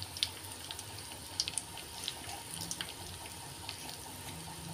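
Oil sizzling in a pot with peanuts, curry leaves and spices frying in it: a steady quiet hiss with scattered small crackles and pops.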